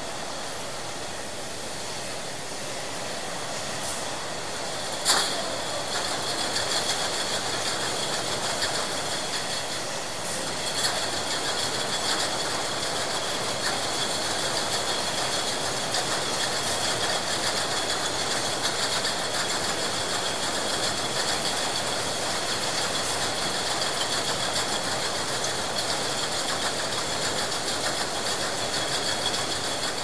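Milk bottle filling line running: a steady mechanical clatter full of small ticks, under a steady high whine. There is a sharp click about five seconds in, and the line runs a little louder after it.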